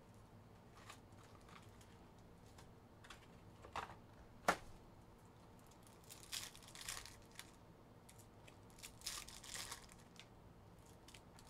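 Foil trading-card packs from an Optic NBA hobby box being handled and torn open: faint crinkling and tearing of the wrappers in bursts about six and nine seconds in, after a single sharp tap about four and a half seconds in.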